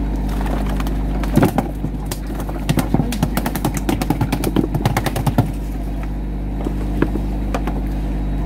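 Boat engine humming steadily. From about a second and a half in to about five and a half seconds there is a run of rapid, irregular knocks and slaps: a freshly caught jack thrashing against a plastic tub on deck.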